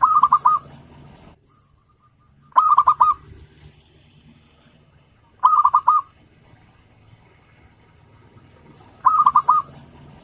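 Zebra dove (perkutut) singing: four short cooing phrases, each a quick run of four or five notes, repeated about every three seconds.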